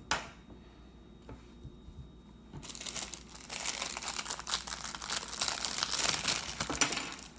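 Cracked iPhone 11 camera lens glass being pried up with a razor knife: a dense crackling of glass and glue starting about two and a half seconds in and cutting off just before the end, after a single click at the start.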